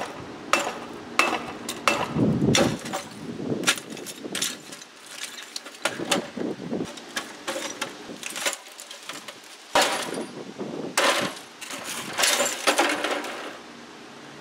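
Baseball bat striking a CRT monitor again and again: sharp impacts with breaking, clinking glass as the thick screen glass shatters. Hits come about twice a second at first, thin out in the middle, and bunch up again near the end.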